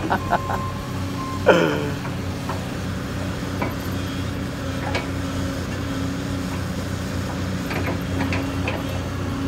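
Diesel engine of a telehandler running steadily with an even hum. About a second and a half in, a short loud falling cry cuts across it.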